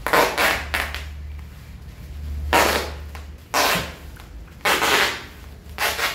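Brown packing tape being pulled off its roll and wound around a bundle of bubble wrap, in a series of about six short, loud tearing pulls.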